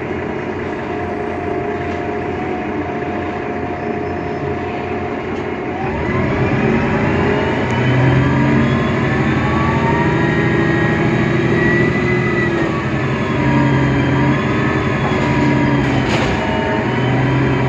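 Mercedes-Benz Citaro O530 Ü bus with its OM 906 hLA diesel engine and Voith DIWA automatic gearbox: a steady drone for about six seconds, then it grows louder, with several whining tones that rise and fall in pitch. The whine is the particular sound this bus is filmed for.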